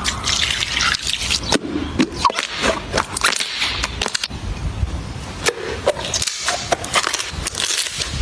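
Slime being squished and pressed by hand: a busy run of wet clicks, pops and squelches.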